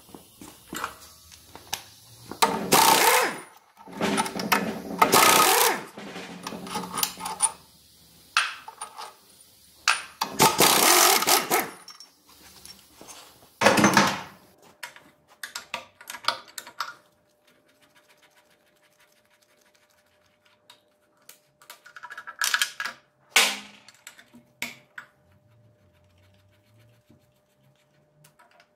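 Workshop clatter of tools and steel gearbox parts during the teardown of a ZF 16S 151 sixteen-speed truck gearbox. There are irregular knocks and clanks, with four loud bursts of about a second each in the first half, then sparser clicks.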